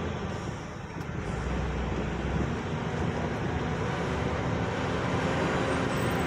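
Steady engine hum and road noise heard inside the cab of a vehicle driving slowly, easing off briefly about a second in.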